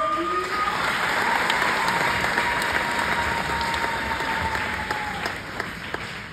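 An audience applauds, starting suddenly and fading near the end. One long, high, steady tone is held over the clapping for about five seconds.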